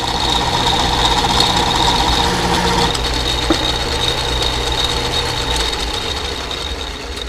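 An electric shop machine runs steadily while an iron plumbing part is worked down, giving a low motor hum with a high grinding whine; the work leaves the part hot. The sound dies down over the last couple of seconds.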